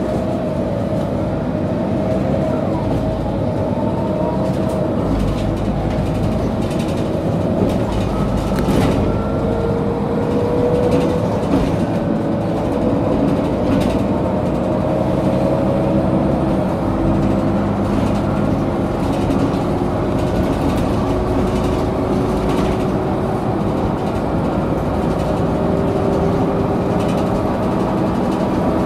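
Ride noise inside a 2008 Mercedes-Benz O530G Citaro facelift articulated bus under way: a steady low drivetrain and road rumble with whining tones that slowly rise and fall in pitch, and scattered light rattles.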